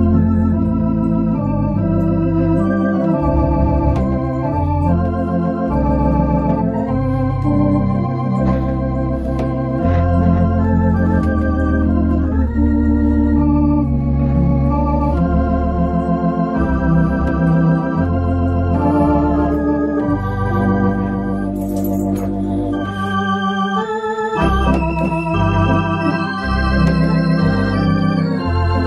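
Baldwin electronic organ played live: a tune with held chords on the keyboards, the notes wavering slightly, over steady bass notes from the pedals.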